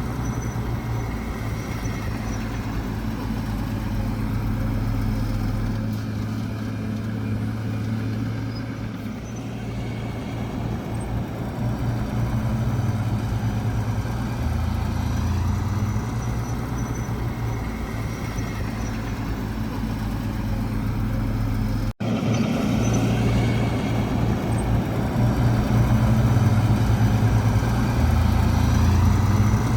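Heavy diesel engines of earthmoving machinery running steadily, their pitch stepping up and down as they work. The sound breaks off for an instant about two thirds of the way through.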